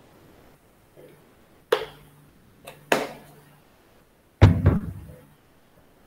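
A few sharp knocks: one about a second and a half in, another about a second later, and a loudest, deeper one past the middle, over a faint low hum that comes and goes.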